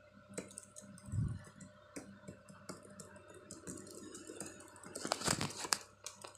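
Irregular sharp clicks and taps, with a dull thump about a second in and a denser, louder run of clicks near the end.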